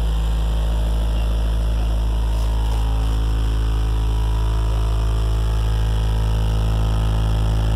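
A vehicle engine idling: a steady, unbroken low drone with a hum.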